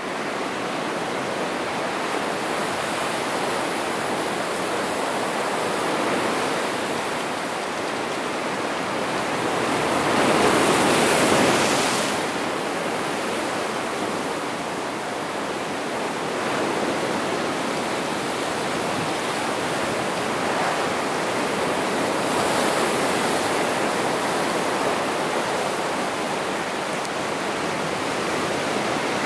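Ocean surf breaking and washing over a rocky shore, a steady rush of water. It swells loudest as a bigger wave breaks about ten seconds in, and rises again more gently later on.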